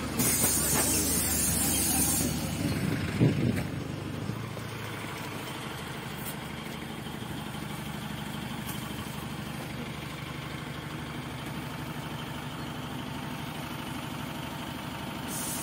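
PAZ-320414-05 Vector city bus's diesel engine idling steadily at a stop. It opens with a loud hiss that lasts about two seconds, followed by a sharp knock about three seconds in.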